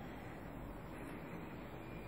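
Steady, faint background hiss with no distinct events.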